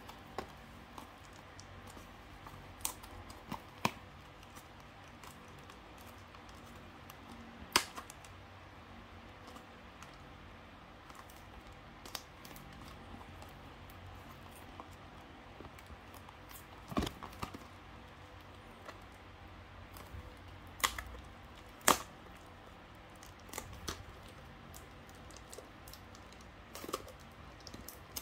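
Scattered clicks, taps and light rustling of hands handling a cardboard trading-card booster box and cards, with a few sharper knocks.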